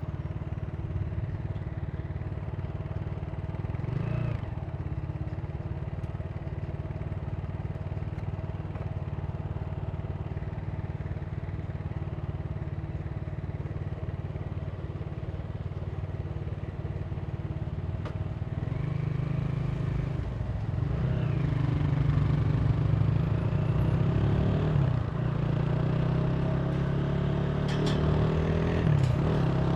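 Italika TC300 motorcycle engine running at a steady cruise, then accelerating from about two-thirds in, its pitch climbing, dropping back at a gear change and climbing again.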